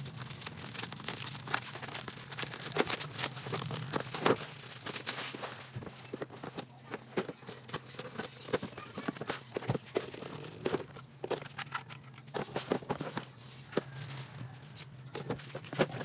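Plastic parcel wrapping being torn open and crinkled, then a cardboard box being handled and opened, as irregular rustles and clicks over a steady low hum.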